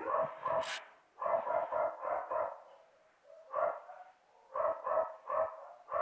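A dog barking repeatedly, about a dozen short barks in runs of one to five with brief pauses between the runs.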